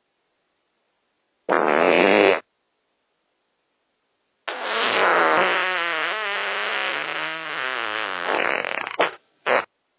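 Fart sound effects: a short fart about a second and a half in, then after a pause a long fart of about four and a half seconds that wavers up and down in pitch, ending in two quick short ones.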